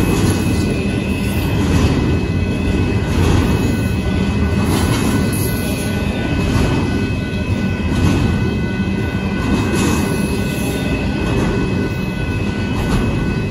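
Double-stack intermodal freight cars rolling past at speed: a steady rumble and rattle of steel wheels on the rails, with a thin, steady high whine over it.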